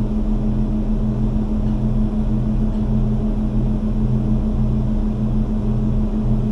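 An engine running steadily: a constant hum with a lower throb that pulses a little more than once a second.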